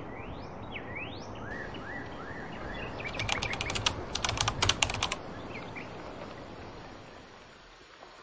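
Outdoor ambience with bird whistles rising in pitch, then a quick run of sharp clicks about three to five seconds in, after which the background hiss fades.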